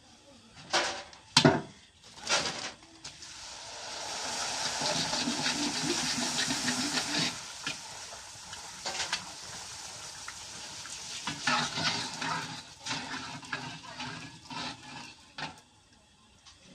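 Puris frying in hot oil in a wok, with a sizzle that swells to its loudest a few seconds in and then settles. A slotted metal skimmer stirs the puris and knocks against the wok, giving a few sharp clanks near the start and scattered clicks later.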